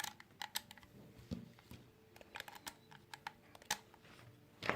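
Irregular light clicks and taps, a dozen or so, of small tools and phone parts being handled on a work surface; the sharpest come at the start and just before the end.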